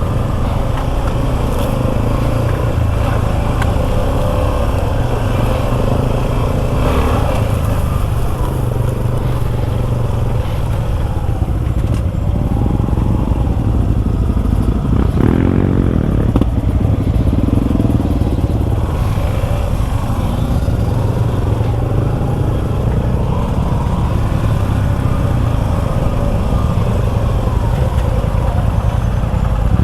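Suzuki V-Strom 250 SX's single-cylinder engine running as the motorcycle rides along, with a steady rumble of wind and road on the microphone. About halfway through, the engine pitch briefly rises and falls.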